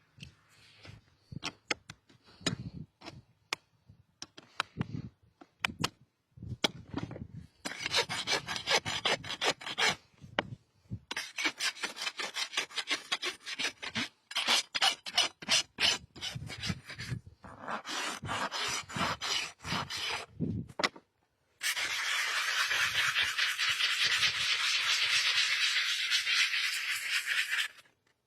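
A rasp filing a horse's hoof in runs of quick back-and-forth strokes, then about six seconds of steady, continuous harsh scraping near the end.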